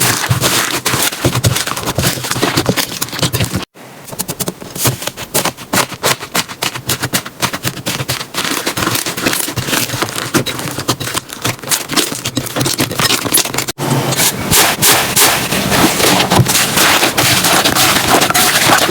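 Slime being squeezed and pressed, with dense, rapid crackling and popping. The sound breaks off abruptly about 4 s in and again near 14 s, where one clip cuts to the next.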